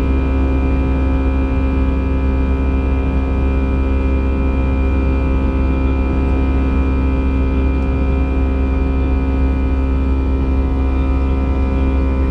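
Airbus A320 cabin noise in flight: a steady, loud drone of engines and airflow, a deep rumble with a constant hum of several fixed tones over it.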